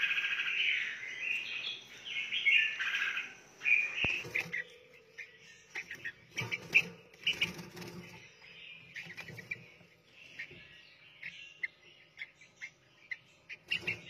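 Small cage birds chirping. There is a dense run of high twittering for about the first four seconds, then scattered short chirps and clicks, with a few sharper knocks around the middle.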